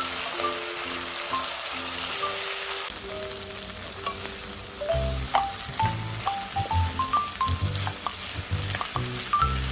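Food frying in a pan, with a steady sizzle and some stirring, under background music whose melody is joined by a bass line about halfway through.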